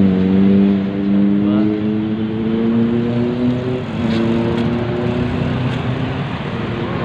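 A motor vehicle engine on a busy road accelerating, its pitch rising steadily, breaking off briefly about four seconds in and then picking up again.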